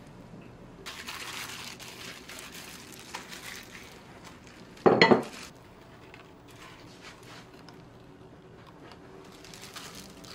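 Kitchen handling sounds while making an acorn jelly salad: a couple of seconds of rustling and light taps, then one loud, short, ringing clink of a utensil against a dish about five seconds in, followed by a few quieter soft taps.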